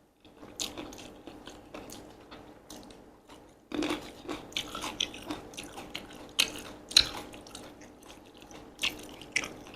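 Close-up chewing and crunching of a mouthful of Korean mixed glass noodles with crisp green beans, heard as many irregular short crunches and wet mouth clicks. They grow louder and denser about four seconds in.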